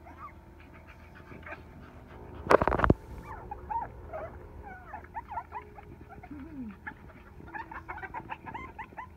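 Pekingese puppies yipping and whimpering in short, high squeaks while they play, the calls coming thicker in the second half. A brief loud burst of noise cuts in about two and a half seconds in.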